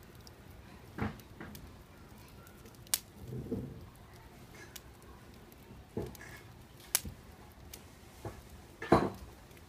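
Wood campfire crackling, with irregular sharp pops every second or two over a low steady hiss; the loudest pop comes near the end.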